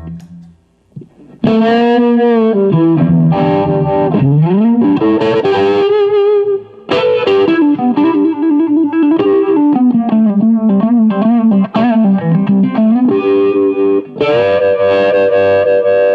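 Electric guitar lead played through a Sweet Sound Mojo Vibe, a Uni-Vibe-style pedal: single-note lines with string bends and a wavering, pulsing modulation on the notes. Playing stops briefly about a second in, then resumes.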